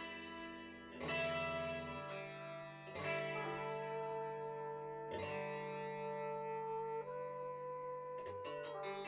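Electric guitar played through effects, slow sustained chords: a new chord struck every one to two seconds and left ringing.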